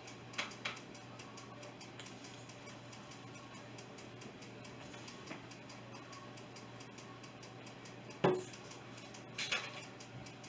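Quiet room tone with a steady faint hum and a few short clicks and taps, the loudest about eight seconds in.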